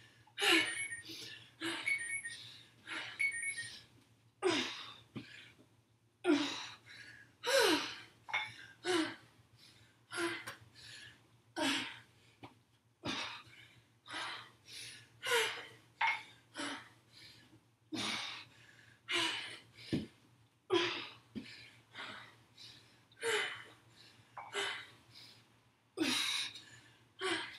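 A woman breathing hard under exertion during dumbbell squat-and-press reps, a sharp gasp or exhale about once a second.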